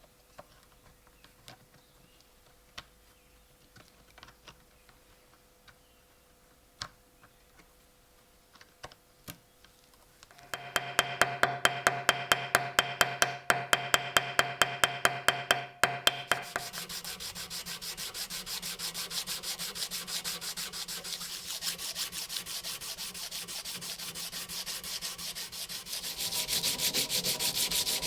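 Faint scattered clicks, then about ten seconds in, rhythmic back-and-forth sanding strokes start at about four a second. After about six seconds they turn quicker and softer, and they grow louder again near the end.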